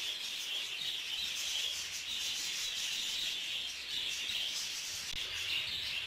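Steady, faint high-pitched chatter of a flock of budgerigars in the breeding aviary, with no single call standing out.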